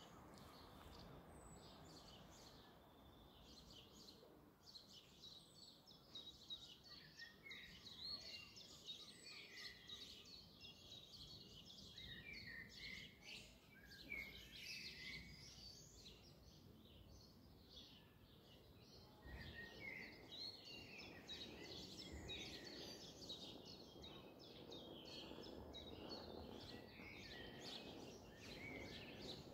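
Faint songbirds chirping and singing over quiet outdoor background noise. About two-thirds of the way in, a faint low rumble comes in and stays.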